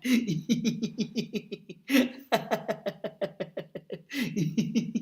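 A man laughing on purpose in rapid, staccato 'ha-ha-ha' pulses, about seven a second, in three runs set off by louder breathy bursts: a laughter-yoga exercise, Wi-Fi laughter.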